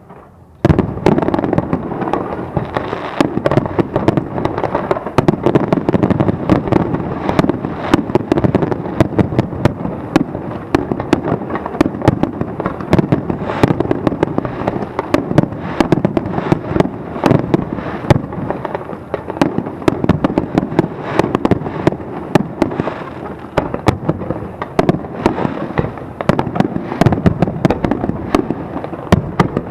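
Aerial fireworks shells bursting in a dense, continuous barrage: rapid sharp cracks and bangs over a heavy low rumble. They start suddenly about half a second in, after a brief lull.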